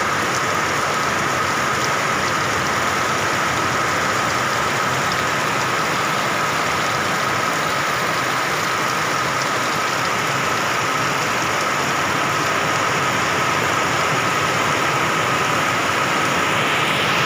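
Heavy rain pouring down steadily, an even rushing hiss with a faint steady high tone running through it.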